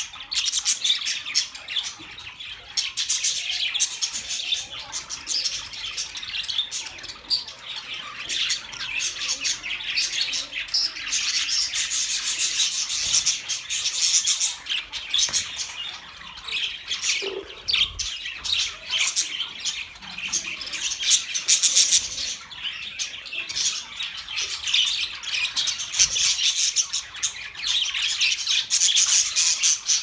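A flock of budgerigars chattering, many birds calling at once in a dense, unbroken stream of high chirps and squawks.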